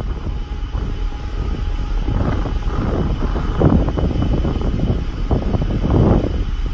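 Wind buffeting the microphone in irregular gusts over a steady low rumble, aboard a moving cruise ship at sea.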